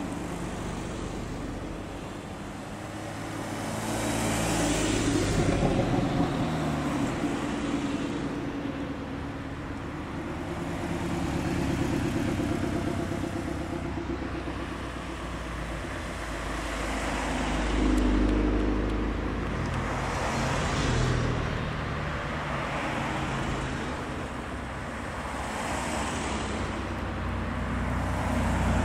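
Porsche 911s driving slowly past one after another, their flat-six engines running at low revs. Each car's engine note swells as it comes close and fades as it moves away, with several going by in turn.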